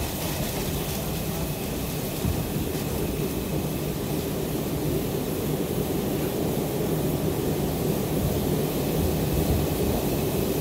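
R142 subway car in motion, heard from inside: a steady rumble of wheels on rail and running gear with a faint steady hum, growing a little louder toward the end.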